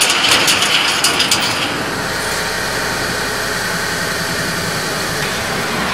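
A vehicle driving, a steady mix of engine and tyre noise, with a run of crackling clicks over the first second and a half.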